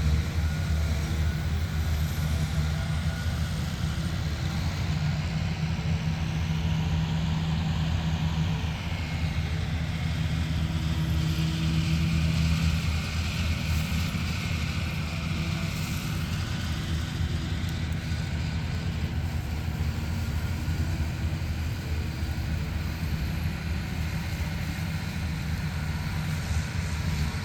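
Engine running steadily with a low drone; about halfway through, a hissing rise swells and fades, as from something passing or speeding up.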